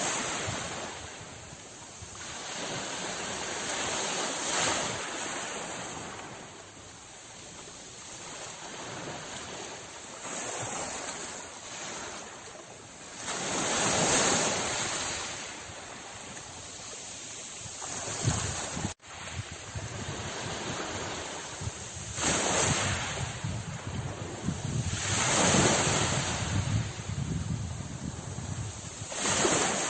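Sea waves breaking and washing on a shore, surging and easing every few seconds, with wind rumbling on the microphone. The sound cuts out for an instant about two-thirds of the way through.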